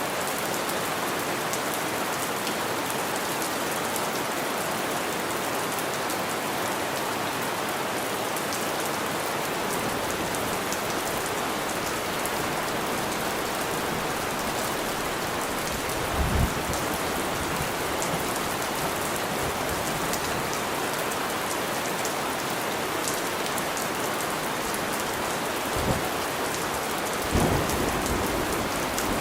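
Steady heavy rain falling on surfaces, an even dense hiss of drops throughout. Three short low rumbles of thunder break in about halfway through and twice near the end.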